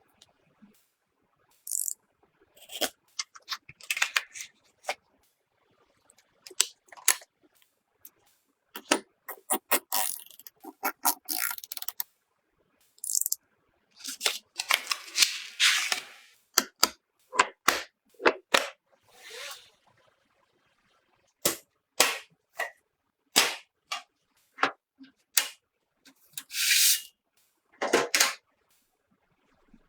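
Hands handling and fitting computer parts: irregular sharp clicks, taps and knocks, with longer scraping or rustling noises around the middle and again near the end.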